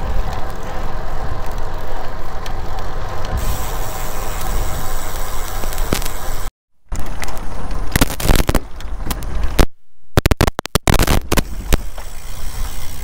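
Wind rushing over the microphone and tyre noise from a road bike being ridden along pavement, steady and low. The sound drops out briefly twice, about six and a half and ten seconds in, and a few sharp knocks come in the second half.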